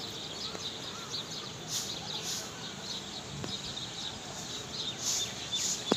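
Many small birds chirping over a steady outdoor background hiss, with a sharp click near the end.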